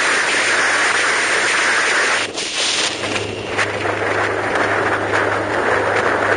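Road and wind noise from a vehicle driving at speed: a steady rushing that dips a little over two seconds in, after which a low steady hum runs under it.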